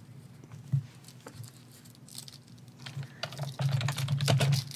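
Quick clicking and tapping at a desk: one sharp click under a second in, then a dense run of rapid clicks near the end.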